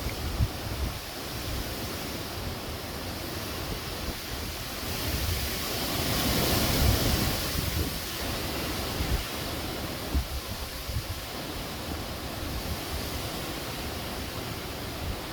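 Strong hurricane wind blowing steadily, with one gust swelling up and dying back near the middle. Wind buffets the microphone in low thumps.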